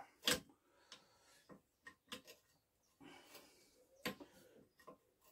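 Scattered light metal clicks and taps from an open-ended spanner being fitted to and worked on the nuts that hold a small engine down to its bed plate. The clicks are irregular, about ten in all, and the loudest comes just after the start.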